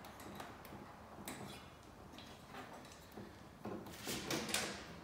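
Small metal ceiling-fan parts clicking and rattling as they are handled. There is a sharp click about a second in and a louder run of clicks and rustling near the end.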